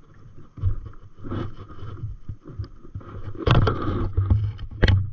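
Water splashing and sloshing beside an inflatable stand-up paddleboard as it is paddled, with two louder splashes about three and a half and five seconds in.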